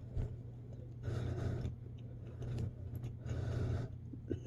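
Someone chewing a crunchy toasted grilled cheese sandwich, crunching in short bursts about once a second, over a steady low hum.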